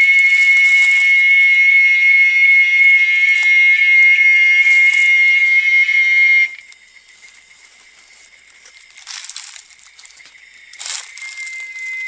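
A loud, steady, shrill high-pitched tone that cuts off abruptly about six and a half seconds in, leaving a much fainter steady tone. Short hissing, rustling bursts come and go throughout.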